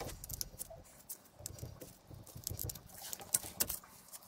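Scattered light metallic clicks, taps and small knocks from hands working the steel shaft and gear parts of a Borg Warner Velvet Drive marine transmission during disassembly.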